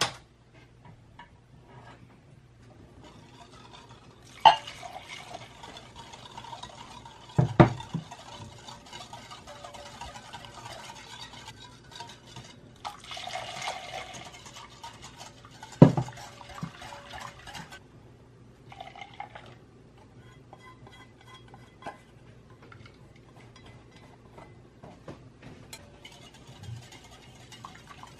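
Warm caramel milk poured from a stainless steel saucepan into beaten egg yolks in a glass bowl while a wire whisk stirs, with a few sharp knocks of metal against glass. The pouring comes in spells; the last third is mostly lighter whisking.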